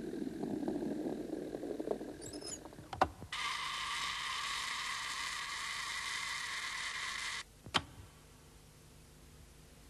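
Old folding-camera mechanism: a low rubbing rumble, a sharp click about three seconds in, then a steady whirring buzz for about four seconds that cuts off suddenly, followed by another sharp click.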